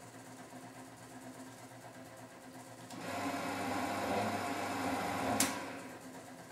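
Miele W 425 front-loading washing machine: a faint steady hum, then about three seconds in the drum turns and the wet laundry sloshes and tumbles. A couple of seconds later the turn ends with a sharp click and the noise dies back to the hum.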